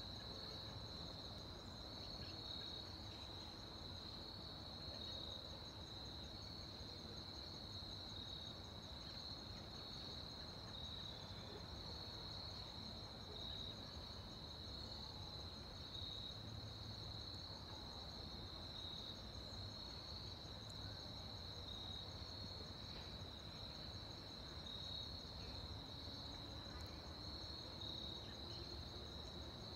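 Steady chorus of insects, a continuous high trill, over a faint low rumble.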